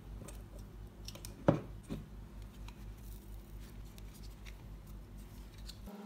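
Hands working a plastic ice-pop mold on a wooden table: a sharp knock about one and a half seconds in, a softer one just after, then small plastic clicks and creaks as the pops are pulled at, over a low steady hum.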